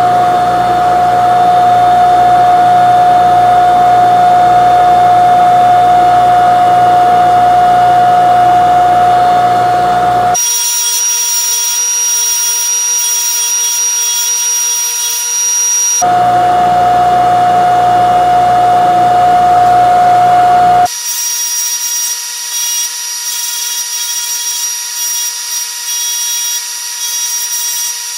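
Power tool running steadily with a motor whine. The sound switches abruptly between a fuller, lower whine and a thinner, higher-pitched one three times: about ten, sixteen and twenty-one seconds in.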